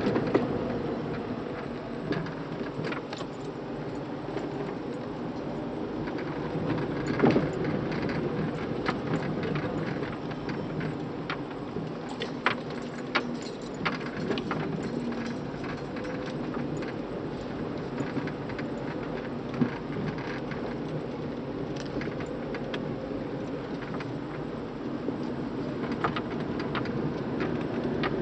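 Repair-workshop noise: a steady mechanical running sound with scattered sharp clicks and knocks, the loudest a few seconds in and again about halfway.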